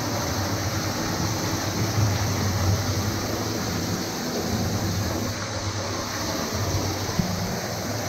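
Steady rushing noise of sea water, with a low rumble underneath.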